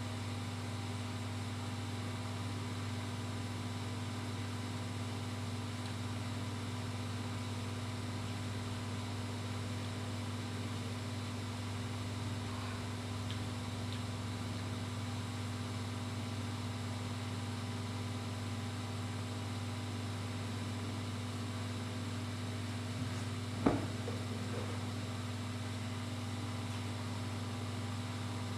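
Steady low hum, with one short sharp click about 24 seconds in.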